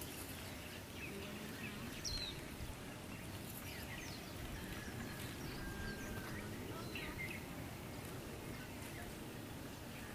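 Outdoor ambience: a steady low background rumble with scattered short bird chirps, the clearest about two seconds in.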